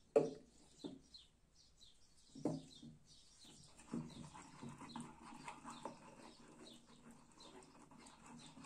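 A wooden spoon stirring thick cassia paste in a wooden bowl, a soft continuous scraping from about four seconds in. Just at the start a small glass dropper bottle is set down on the wooden table with a knock. Small birds chirp faintly throughout.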